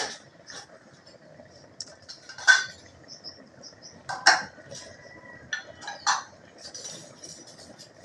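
Hands placing tuna pieces and garlic in a pan: scattered light clinks and knocks against the pan, the two loudest about two and a half and four seconds in.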